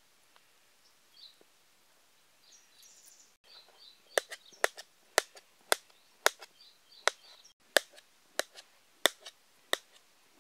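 A knife chopping peeled bananas into chunks on a metal plate: sharp taps of the blade through the fruit onto the plate, about one every half second, starting about four seconds in. Faint bird chirps come before the chopping.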